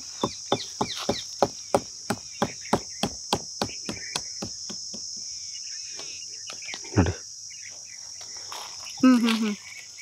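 Fingernail scratching the rough bark of a young red sandalwood (Pterocarpus santalinus) trunk, about three short strokes a second for the first four seconds, scraping the bark away to expose the red sap. A steady high insect buzz runs underneath throughout.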